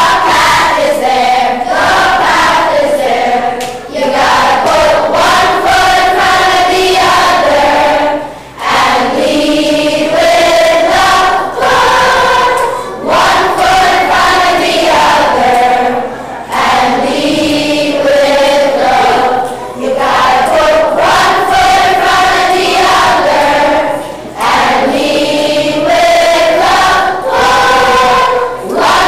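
Children's choir singing a song together, in phrases of a few seconds with short breaths between them.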